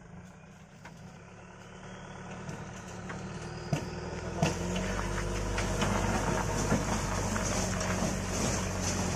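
Diesel dump truck engine running steadily, growing louder through the first half and then holding level, with a couple of sharp knocks about four seconds in.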